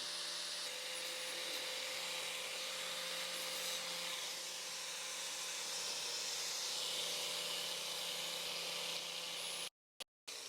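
Angle grinder running steadily while grinding steel, with a steady motor whine under a hissing grind. It cuts off suddenly near the end, then comes back briefly with the whine falling as the grinder winds down.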